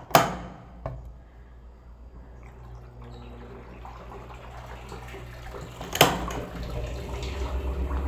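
Water running and dripping in an Electrolux Turbo Economia LTE06 washing machine, over a low steady hum, with a sharp knock at the start and another about six seconds in.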